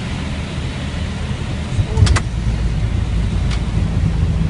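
Steady low rumble in an Airbus airliner's cockpit during the flare, then about two seconds in a thump with a couple of sharp clicks as the main landing gear touches down on the runway. After it the rumble grows louder as the wheels roll out.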